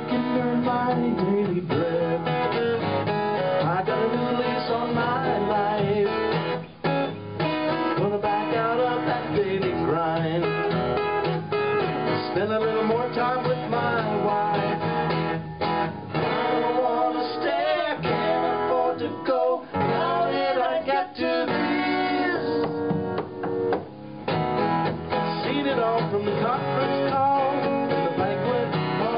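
Instrumental break in a country-style song, led by guitar over acoustic guitar, with notes that bend and slide.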